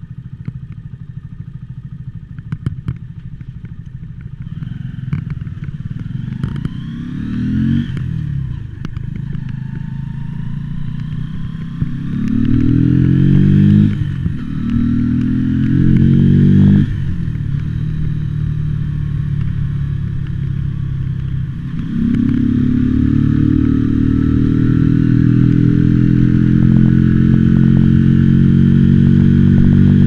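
Mutt Akita motorcycle's single-cylinder engine, low and even with crackling clicks in the recording at first, then revving up and dropping sharply three times as it accelerates through the gears. In the last third it holds a louder, steady note that climbs slowly.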